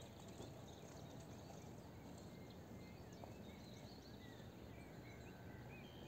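Near silence: faint open-air background hiss with a few scattered faint chirps of small birds.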